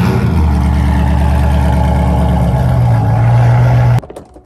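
C5 Corvette's 5.7-litre V8 running at idle through its hand-built valved exhaust: a loud, steady, low rumble that lifts slightly about two and a half seconds in. It cuts off abruptly near the end.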